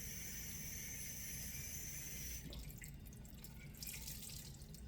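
Kitchen tap running into the sink, shut off about two and a half seconds in, followed by a few drips.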